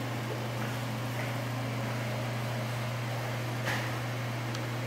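A steady low hum with an even hiss behind it, like a room's ventilation or appliance running. A faint click comes about three and a half seconds in.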